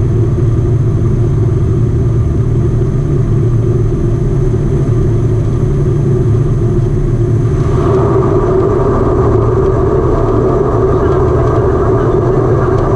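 Antonov An-24's Ivchenko AI-24 turboprop engines and propellers droning loudly in the cabin during the landing rollout on a wet runway. About eight seconds in, the sound changes and a stronger mid-pitched hum comes in and holds.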